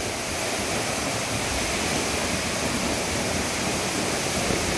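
Three waterfalls spilling down a rock cliff into a shallow pool: a steady, unbroken rush of falling water.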